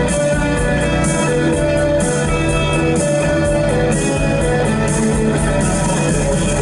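Music with prominent guitar and a steady rhythmic beat.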